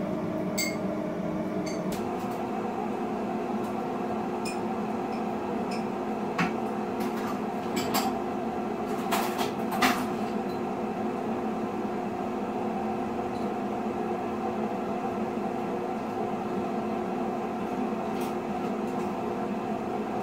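Steady hum of a running kitchen appliance, its tone shifting slightly about two seconds in, with a few light clinks and knocks of kitchenware around the middle.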